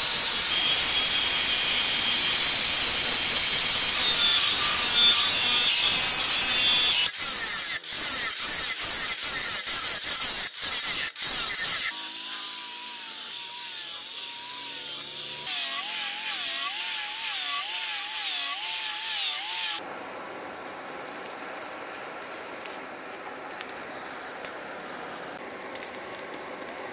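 Angle grinder grinding the steel of a cleaver blade: a loud, steady grinding hiss, broken into short passes after about seven seconds. Quieter metal scraping follows, and after about twenty seconds only a low crackle with small pops as the blade heats in a charcoal forge fire.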